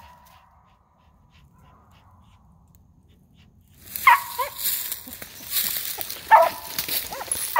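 Treeing dog barking treed at a squirrel up a tree: after a few quiet seconds, three sharp barks about two seconds apart.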